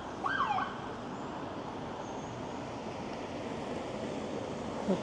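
A police car siren gives one short falling whoop near the start, as when a patrol car signals a driver to pull over, followed by steady street traffic noise.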